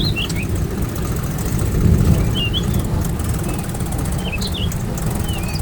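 Small engine running at a rapid, steady chug, swelling slightly about two seconds in. Birds twitter briefly several times.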